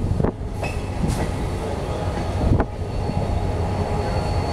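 Passenger train running slowly through a station, heard from a carriage window: a steady rumble of wheels on rail with a few sharp knocks over the track. A faint high wheel squeal comes in during the last couple of seconds.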